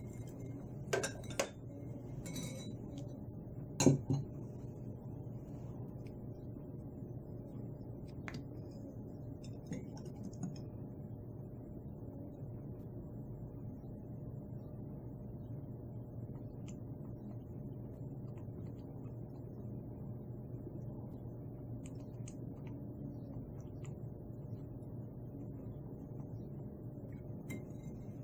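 Metal spoon clinking against a ceramic bowl while mixing a sauce. There are a few sharp clinks in the first few seconds, the loudest about four seconds in, then only occasional faint taps over a steady low hum.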